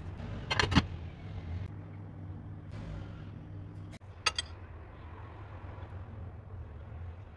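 A wooden spoon stirs rice pilaf in a nonstick pan, knocking and scraping against the pan several times in quick succession just under a second in, over a steady low hum. Just after four seconds in, a spoon clinks briefly on a ceramic plate.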